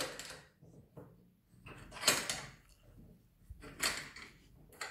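Parkside DIY vise being set: its swivel head is turned into position and the locking lever on the joint is tightened. Four short scraping, rubbing bursts of metal parts come a second or two apart.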